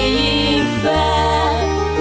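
Music: a song with a singing voice bending in pitch over steady, sustained low bass notes.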